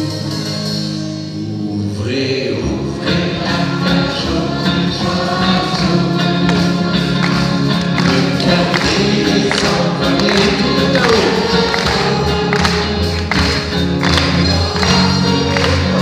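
Live band music with electric guitar and singing voices, heard from the audience; the music fills out about two seconds in, and a steady beat grows stronger near the end.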